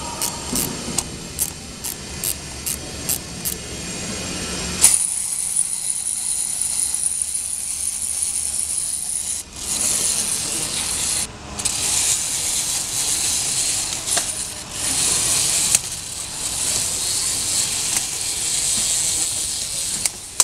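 Clockwork toy train's spring being wound, with about two ratchet clicks a second. About five seconds in, the spring motor starts running with a steady high whir, broken by a few brief dips.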